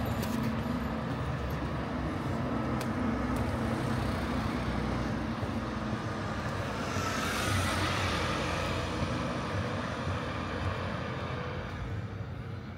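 Steady street traffic noise, with a vehicle passing close: its tyre and engine noise swells to a peak about seven to eight seconds in, then fades.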